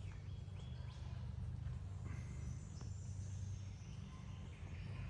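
Quiet rainforest ambience: faint scattered bird calls over a low steady rumble.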